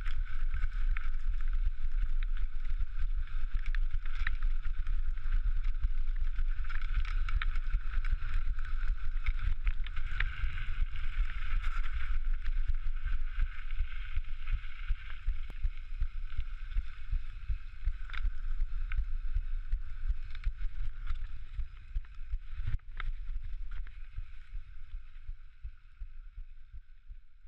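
A heartbeat thumping steadily over a constant hiss, fading out near the end.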